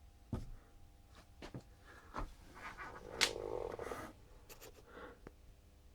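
Faint handling noises: scattered small clicks and a brief rustle, with one sharper click about three seconds in, over a faint steady hum.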